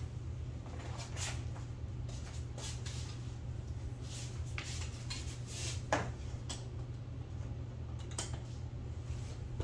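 Faint handling noises as a power cord is plugged into a wall outlet: scattered light clicks and rustles, one sharper click about six seconds in, over a steady low hum.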